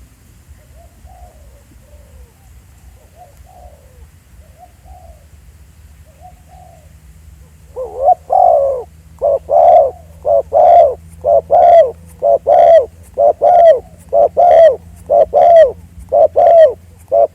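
Spotted dove cooing: faint, distant-sounding coos for the first several seconds, then from about eight seconds a loud, close run of short repeated coos, about two a second.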